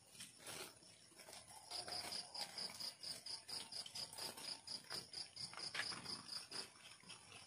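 An insect chirping in an even rhythm, about four high chirps a second, pausing briefly and starting again about two seconds in.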